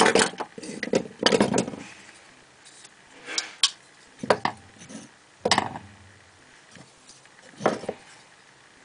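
Folding knives, among them a Rick Hinderer XM-24, handled and set down on a wooden tabletop: a string of irregular metallic clinks and knocks, some in quick clusters.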